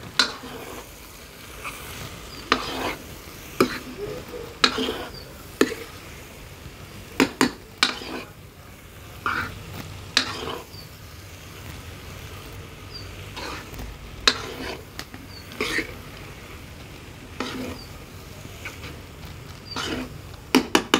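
A metal ladle scrapes and clinks against an iron kadai as dry spiced potatoes are stirred, in irregular strokes about once a second.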